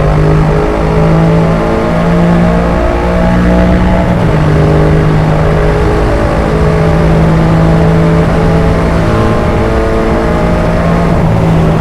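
Yamaha MT-07's parallel-twin engine through an Arrow aftermarket exhaust, running under way at road speed. Its pitch holds steady for a second or two at a time, then steps to a new level.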